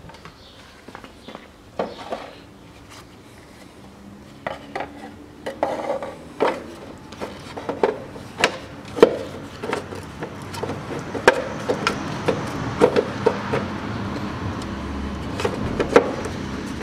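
The hard plastic front cover of a STIGA Park Pro 20 4WD rider being fitted back onto its frame by hand, giving irregular knocks, clicks and rubbing of plastic against plastic and metal. The knocks come more often from about five seconds in.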